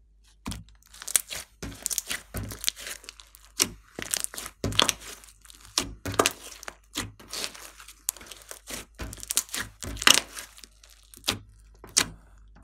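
Glossy slime being kneaded, stretched and squeezed by hand, giving an irregular run of sharp pops and crackles as trapped air bubbles burst, starting about half a second in.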